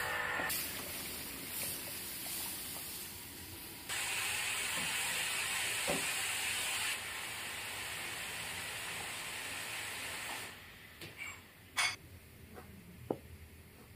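Steam hissing steadily from a large iron wok of boiling water. It grows louder about four seconds in and cuts off about ten seconds in. Then comes a sharp knock, followed by a few light taps of a cleaver on a wooden chopping board.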